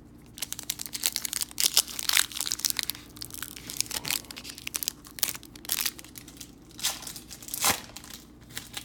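Plastic trading-card pack wrapper being torn open and crumpled, with irregular sharp crinkling crackles throughout.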